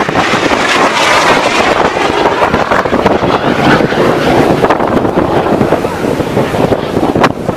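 Loud, steady rushing roar of a jet aircraft flying a display pass, mixed with wind buffeting the microphone. A sharp click near the end.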